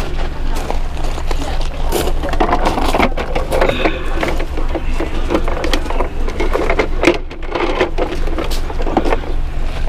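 Footsteps crunching irregularly on loose pea gravel, with plastic clatter as a large plastic toy truck is picked up and handled, over a steady low hum.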